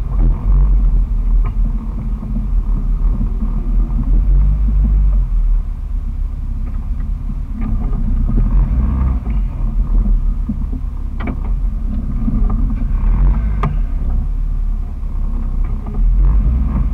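2001 Jeep Wrangler TJ's 4.0-litre inline-six running loud and low at crawling trail speed through an exhaust with the muffler removed (muffler-back delete). A few sharp knocks come through now and then over the steady rumble.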